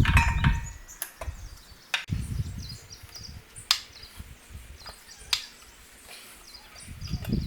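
A handful of sharp metallic clicks and knocks, a second or more apart, from a prop wrench working the propeller nut loose. Low wind rumble on the microphone and bird chirps sit underneath.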